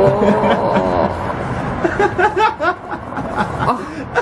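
A person laughing in short, quickly repeated bursts, starting about halfway through, after a drawn-out voiced sound at the start.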